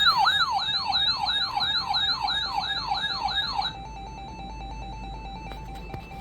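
Electronic siren in a rapid yelp pattern: a tone sweeping quickly downward over and over, about three sweeps a second, cutting off suddenly a little over halfway through. After it, a faint steady tone over a low hum.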